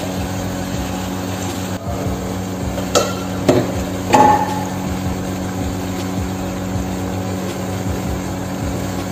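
Aluminium pot lid lifted off and set down: three metal clanks about three to four seconds in, the last ringing briefly, over a steady low hum.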